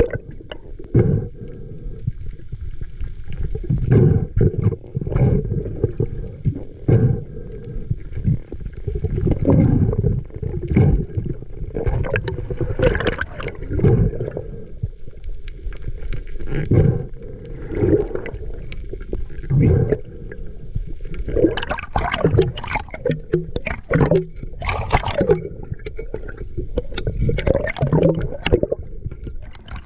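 Underwater water noise heard through an action camera's waterproof housing: low gurgling and sloshing with irregular bumps, growing sharper and busier in the last third as the diver reaches and handles a speared dogtooth tuna on the line.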